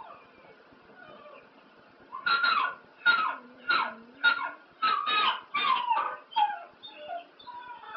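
Dog giving a rapid run of short, high yelping cries, about two a second, each falling in pitch, starting about two seconds in.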